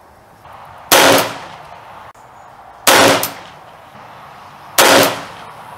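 Three gunshots about two seconds apart, each with a brief decaying echo: 9mm Luger rounds fired from an H&R Tamer 20-gauge single-shot shotgun through a Short Lane chamber adapter.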